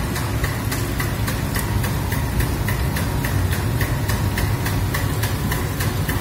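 Sugarhouse machinery running with a steady low hum and a regular ticking about four times a second, over maple sap boiling hard in the evaporator pan.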